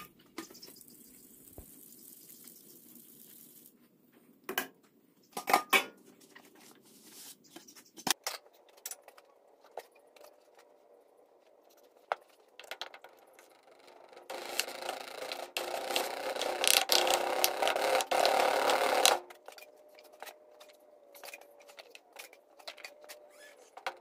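Hand tools working a sand mold: scattered clicks and knocks, then about five seconds of continuous scraping and rubbing noise past the middle, the loudest part, which stops suddenly.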